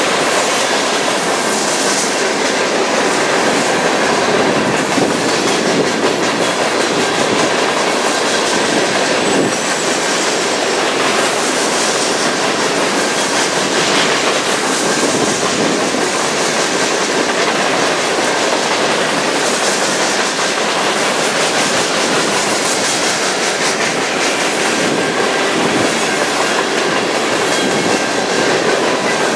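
Freight train's cars, centerbeam flatcars and boxcars, rolling past close by: a loud, steady rumble with the clickety-clack of wheels over rail joints.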